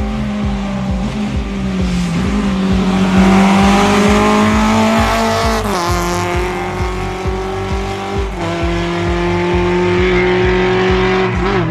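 Lada saloon rally car's four-cylinder engine running hard at high revs. Its pitch climbs, then drops at a gear change about six seconds in, and it holds steady again afterwards. This plays over music with a steady beat.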